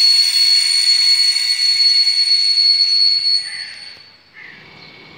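Rails singing ahead of an approaching train: a steady high-pitched whine with overtones that fades away about three and a half seconds in, leaving a faint hiss.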